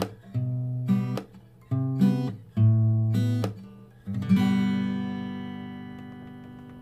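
Acoustic guitar music: a few short strummed chords, then about four seconds in one chord left to ring out and slowly fade.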